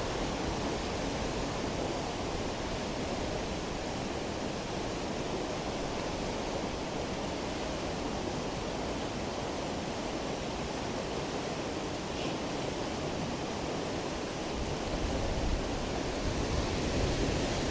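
Steady rush of a river in spate, an even unbroken roar of fast floodwater that swells slightly near the end.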